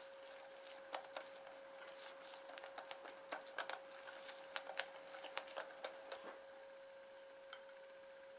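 Wire whisk clicking and scraping against a glass mixing bowl while stirring batter, an irregular run of light clicks that stops about six seconds in. A faint steady hum runs underneath.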